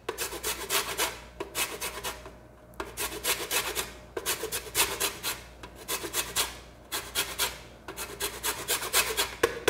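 Lime peel being grated on a metal box grater: quick rasping strokes, about four or five a second, in runs broken by short pauses.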